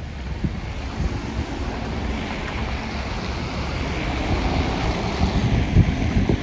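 Wind buffeting the microphone in low gusts, with the hiss of car tyres on a wet, slushy road swelling in the middle and fading again as traffic goes by.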